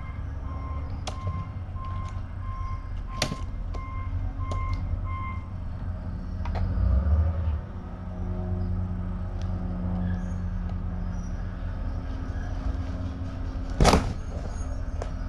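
An electronic beeper sounding about twice a second, stopping about five seconds in, over a steady low rumble. A few sharp knocks come through, the loudest near the end.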